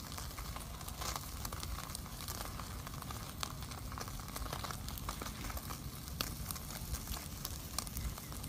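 Small open wood fire burning and crackling: a steady hiss with irregular sharp pops from the burning wood.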